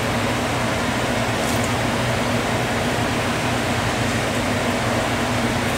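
Hot fat sizzling steadily in a frying pan on a gas burner, with a low steady hum underneath.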